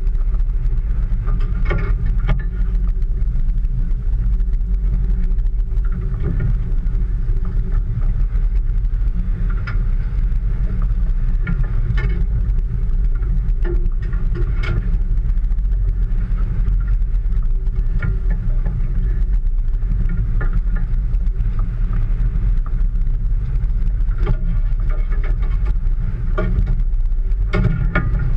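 A small fishing boat's engine running with a steady low rumble. Scattered knocks and slaps come from the hull and gear as the boat works through choppy water.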